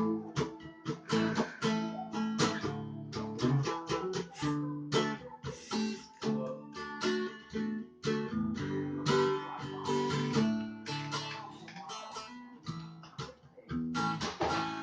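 Acoustic guitar being strummed, a run of chords with sustained ringing notes.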